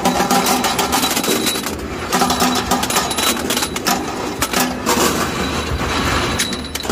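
Bolt-making machinery running loudly, with rapid metallic clanking and knocking and a tone that swells and fades about every two seconds. Steel bolts clink and clatter as they drop down a metal chute into a steel bin.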